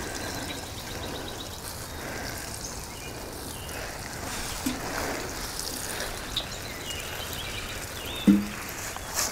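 Water sprinkling steadily from the rose of a galvanized metal watering can onto mulched soil, watering in a fresh transplant. A brief low hum sounds about eight seconds in.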